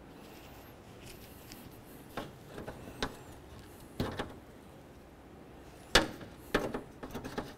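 Plastic push clips being pried out with a metal trim tool: a handful of short, sharp clicks and taps, the loudest about six seconds in, followed by a quick run of smaller ones.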